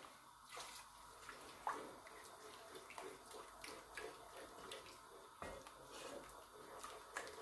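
Faint, scattered soft scrapes and light knocks of a wooden spoon stirring a thick flour-and-chicken-stock sauce in a pot.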